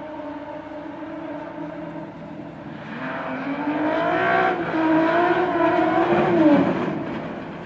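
Trophée Andros ice-racing car's engine running, growing louder and higher about three seconds in, its revs wavering up and down for a few seconds, then dropping away near the end.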